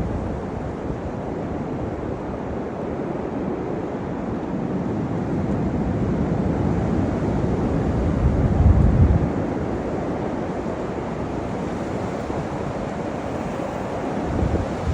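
Strong wind roaring in gusts and buffeting the microphone; one gust builds to its loudest about eight to nine seconds in, then eases off.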